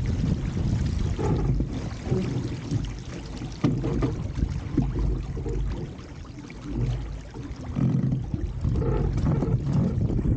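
Water rushing and splashing along the hull of an RS300 sailing dinghy under way, with wind buffeting the microphone. The sound comes in uneven surges and eases briefly past the middle.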